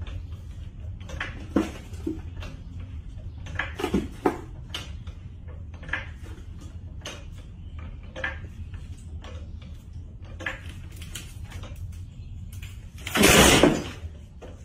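Hydraulic floor jack being pumped by its long handle: a series of irregular metallic clicks and clanks over a low steady hum. Near the end comes one loud burst of noise lasting under a second.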